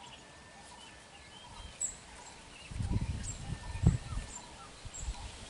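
Birds chirping, with a burst of low rumbling and a few dull thuds from about three seconds in.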